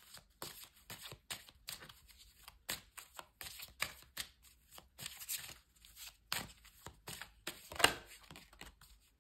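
A deck of tarot cards being shuffled by hand: a run of irregular soft clicks and flicks of card on card, with a louder swish of cards about three-quarters of the way through.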